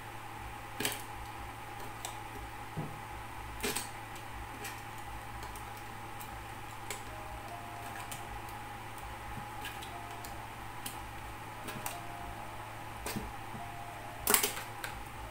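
Scattered clicks and knocks of small hand tools against a plastic router casing and the work table, over a steady hum; the loudest knock comes near the end.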